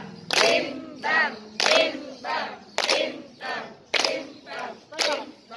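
A group of women singing in unison while clapping their hands in a steady rhythm, about two claps a second.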